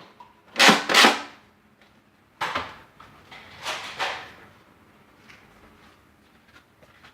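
Nerf foam-dart blasters firing: several sharp puffs of air with knocks, in the first four seconds.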